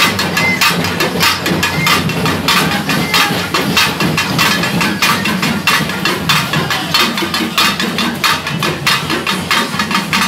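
Festival drums beating fast and hard, about four or five strikes a second, without a pause.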